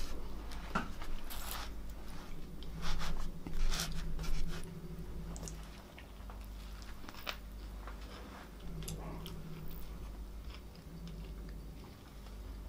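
A woman biting into and chewing a burger close to the microphone: a run of short, sharp bite and mouth sounds, loudest in the first half, then quieter chewing.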